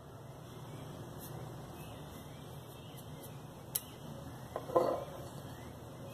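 Faint steady room hum, broken by a sharp click a little before four seconds and a short clatter just before five seconds as the clay-covered lid is lifted off the glass jar.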